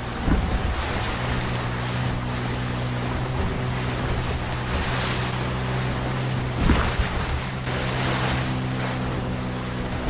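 Tohatsu 9.8 two-stroke outboard running at a steady pitch through whitewater rapids, under the rush of breaking waves and wind on the microphone. Waves hit the inflatable hull with a thump just after the start and again near seven seconds.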